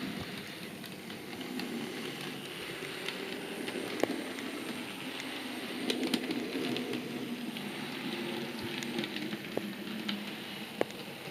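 Model diesel locomotive running along a model railway track: a steady low rumble and hum, with a few sharp clicks about four and six seconds in and again near the end.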